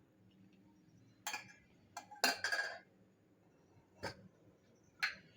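Kitchenware clinking and knocking while chicken stock is strained: a strainer and utensils knock against the pan and cup five or so times, at uneven intervals, with a slightly longer rattle about two and a half seconds in.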